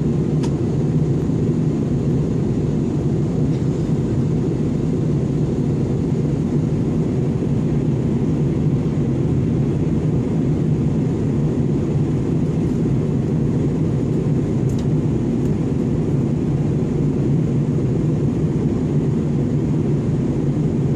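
Steady cabin noise of an airliner in flight: a constant low rumble of engines and airflow, unchanging throughout.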